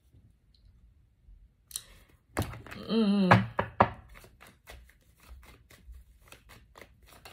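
Tarot cards being handled on a table: a run of quick, sharp card snaps and taps at about four a second, after a short hummed vocal sound about three seconds in.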